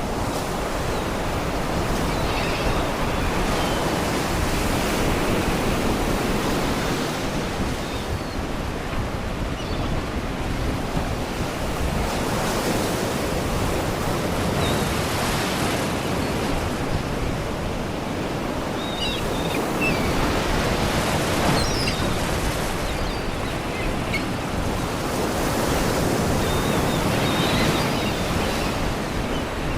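Sea waves surging and washing against rocks in slow swells, every seven or eight seconds, with faint scattered cries of seagulls above the surf.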